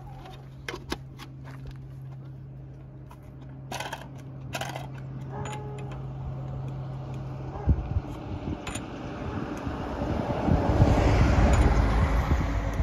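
Scattered sharp metal clicks and knocks from a tyre change on a rally car, over a steady low hum. From about two-thirds of the way in, a rising rumble of a vehicle approaching grows to the loudest part near the end.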